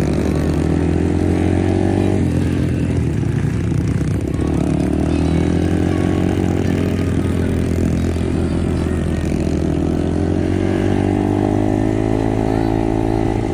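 Dirt bike engine running hard, its pitch climbing in three long rises, as when the bike accelerates or is revved.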